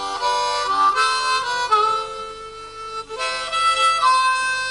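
Harmonica playing a tune, several notes sounding together, with a long held note about two seconds in and a brief break just after three seconds before the melody goes on.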